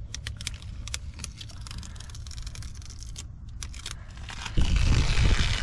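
Clear plastic protective film being peeled off a plastic body panel and badge: a string of light crackles and ticks over a low steady rumble. About four and a half seconds in, a much louder rough rustling noise starts.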